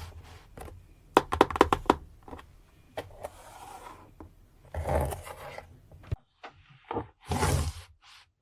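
Plastic toys and packaging being handled during an unboxing: a quick run of clicks a little after a second in, then scraping and rustling, with sudden drops to silence.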